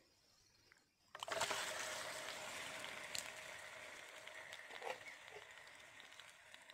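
Raw chicken pieces hitting hot desi ghee in a karahi: a sizzle starts suddenly about a second in and slowly dies down as the ghee cools around the meat, with a few faint pops.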